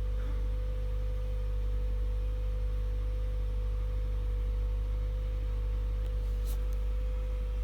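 Toyota Auris Hybrid / Prius whining: a steady whine held at one pitch over a low rumble.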